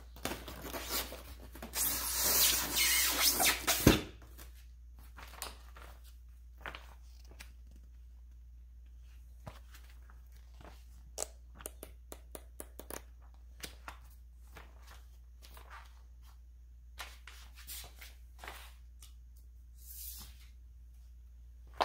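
Polystyrene foam packaging squeaking and rubbing as it is worked apart, ending in a thump about four seconds in. Then faint scattered rustles and taps of paper and packing being handled, and a sharp knock at the very end.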